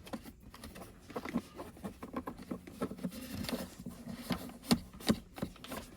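Irregular light clicks and taps of hands handling small plastic parts and a charging cable, with two sharper clicks about five seconds in.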